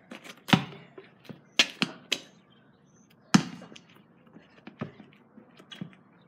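Basketball bouncing on a paved driveway: several sharp separate bounces, a quick run of three about a second and a half in, the loudest one near the middle, and fainter ones near the end.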